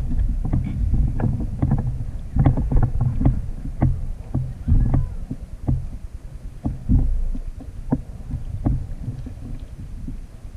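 A small tuna (shibi) thrashing on a plastic kayak, its tail and body beating the hull in a fast, irregular run of thumps and knocks. The blows thin out and weaken toward the end.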